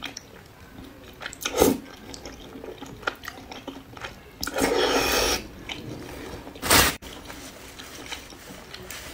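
Slurping and chewing of wide, flat noodles in a thick chili sauce. Three loud slurps come about one and a half, five and seven seconds in, the middle one the longest, with soft wet chewing clicks between.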